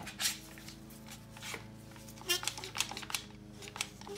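Sharp clicks and knocks as bar clamps, among them an Irwin one-handed clamp, are set and squeezed onto a glued wooden plate. Under them runs the steady drone of a lawnmower engine.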